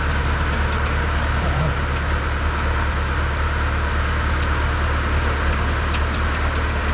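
Portable sawmill's engine running steadily, a constant drone with no change in pitch.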